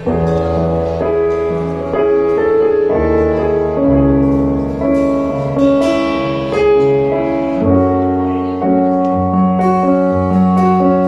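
Instrumental piano music: slow, sustained chords changing about once a second over low bass notes.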